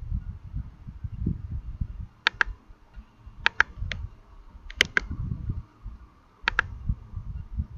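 Computer mouse clicking: several sharp clicks, mostly in quick pairs, spread across a few seconds, over a low uneven rumble.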